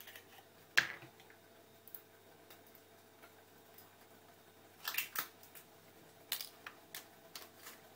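Scattered short clicks and light knocks of things being handled on a kitchen counter: one sharp knock about a second in, a pair around five seconds, and a few smaller ones near the end, over a faint steady hum.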